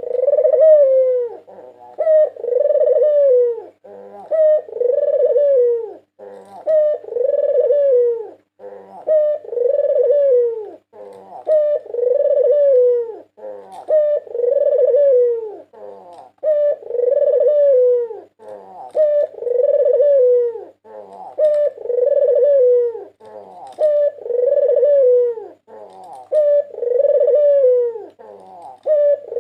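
White puter dove (Barbary dove) cooing over and over, one drawn-out coo about every two seconds with short clipped notes between them. A faint steady hum runs underneath.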